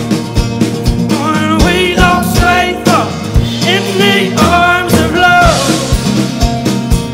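Live acoustic band playing: strummed acoustic guitar over a drum kit with a steady kick drum about twice a second. A man's wordless vocal line rises and falls over it from about a second in until past the middle.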